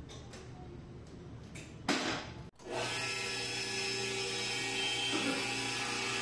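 Electric meat band saw running steadily, its motor and blade giving a constant whine with several held tones. A brief loud burst of noise comes about two seconds in, just before the saw's sound begins.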